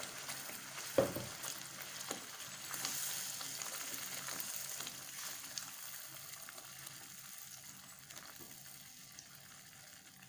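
Ground masala paste sizzling in butter in a non-stick pan as it is stirred with a silicone spatula, with a sharp knock about a second in. The sizzle slowly dies down toward the end.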